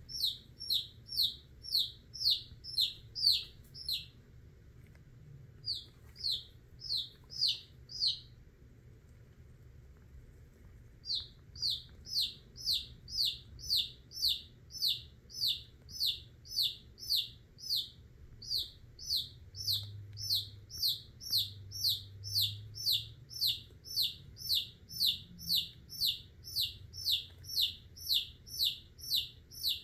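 A baby chicken chick peeping loudly and rapidly, about three high, downward-sliding peeps a second. The peeping breaks off twice near the start, the second time for about three seconds, then carries on steadily.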